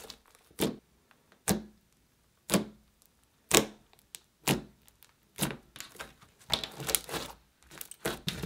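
Thick, glossy slime being poked and pressed by fingers, trapped air bursting in sharp wet pops about once a second, then quicker runs of pops and squishes near the end.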